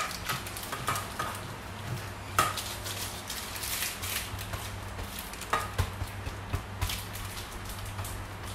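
Block of parmesan rubbed against a handheld flat grater, making irregular rasping scrapes with light clicks and taps of the grater.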